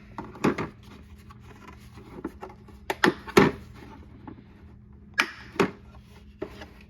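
Tools being handled on a tool cart: a series of sharp clacks and knocks, loudest in a quick pair a little after three seconds in and another pair about five seconds in.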